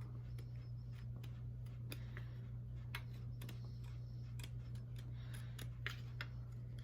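Big scissors slowly cutting thin diamond-plate sheet metal: faint, irregular small clicks and snips, a few bunched together near the end, over a steady low hum.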